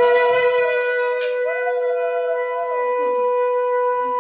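A conch shell (shankha) blown in one long, steady, unwavering note. For the first few seconds a fainter second tone wavers above it.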